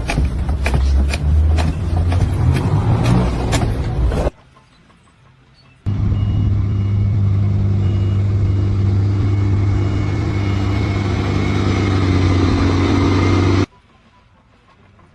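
A few seconds of loud clattering and knocking, then after a short pause a steady engine drone with a faint high beep repeating at an even pace.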